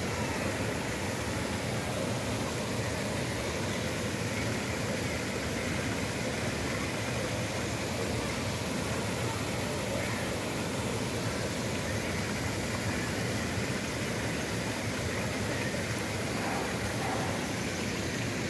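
Steady outdoor background noise: an even rushing hiss at a constant level, with no distinct events.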